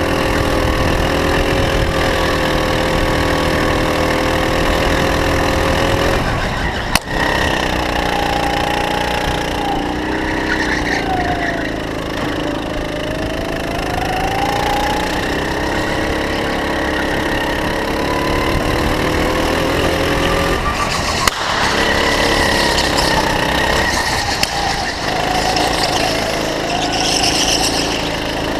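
Go-kart engine heard onboard, its pitch falling and rising repeatedly as the kart slows for corners and accelerates out of them. Two sharp knocks stand out, about seven seconds in and about twenty-one seconds in.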